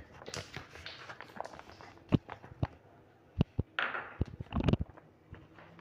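A spoon and ceramic bowl being handled: a scattering of sharp clinks and knocks, mostly in the second half, with a short rustle or scrape just before the two last knocks.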